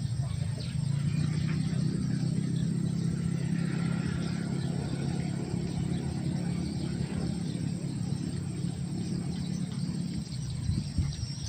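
A steady low hum of a running engine, fading a little before the end, with faint insect chirping.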